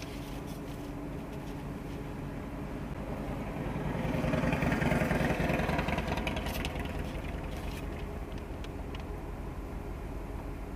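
Car engine idling steadily, heard from inside the cabin, while a motorcycle passes close by, building to its loudest about five seconds in and then fading away.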